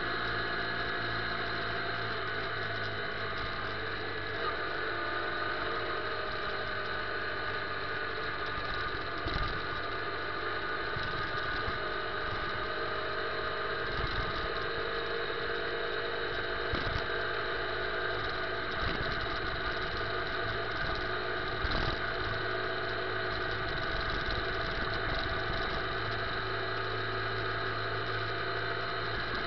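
Motorcycle engine running at a steady, unchanging pitch while riding along a street, with a few brief knocks now and then.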